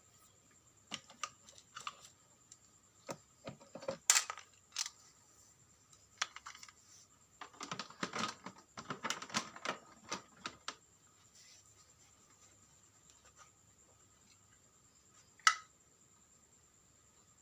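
Irregular clicks, taps and rattles of small hard parts being handled, with a busier stretch of rattling clicks in the middle and one sharp click near the end. A faint steady high whine runs underneath.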